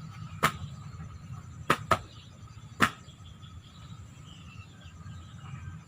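Four sharp clicks, the middle two close together, over a steady low background hum.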